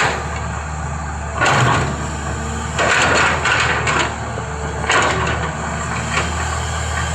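Excavator diesel engine running steadily, with several loud bursts of scraping and crunching, as of the bucket digging into earth and broken brick.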